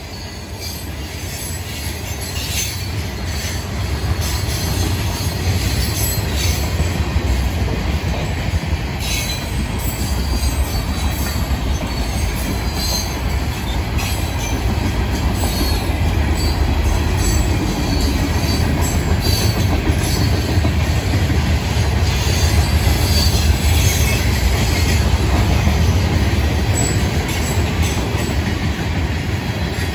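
Freight train cars (covered hoppers and refrigerated boxcars) rolling past at speed: a steady rumble of steel wheels on rail with scattered clacks, growing louder over the first few seconds and then holding.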